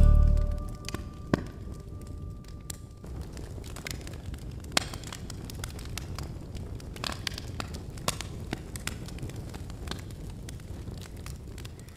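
Scattered, irregular crackles and pops over a low steady rumble.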